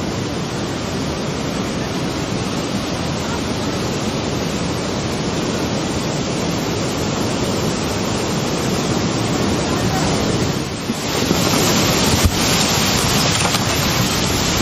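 Tsunami seawater churning and rushing ashore: a steady roar of water, mixed with wind on the microphone, that grows louder and harsher about eleven seconds in as the flood sweeps across the ground, with one sharp click shortly after.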